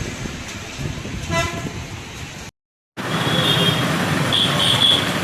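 Street traffic with vehicle horns honking over a steady hiss: one short horn blast about a second and a half in, then several short high-pitched toots after the sound cuts out briefly partway through.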